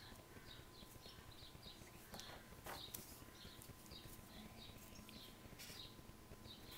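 Near silence with faint small-bird chirps, short high calls coming about twice a second, over a thin steady tone and a couple of soft scrapes near the middle.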